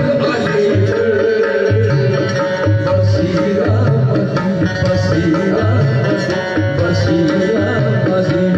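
Live qawwali: a harmonium holds a steady drone and melody while hand drums beat out a rhythm with repeated deep strokes, and a singer's voice weaves through it.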